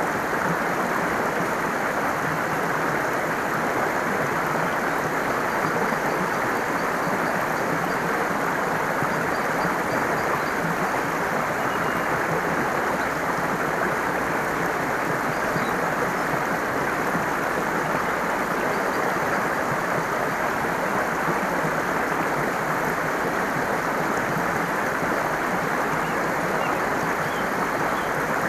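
Water in a stream flowing steadily, an even rushing with no break, and faint high bird chirps now and then.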